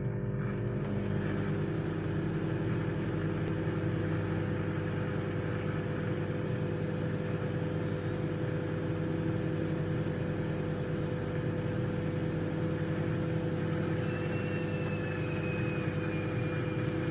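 Microwave oven running with a steady hum. About three-quarters of the way through, a faint high-pitched whistle begins as steam starts escaping from a sweet potato cooking inside.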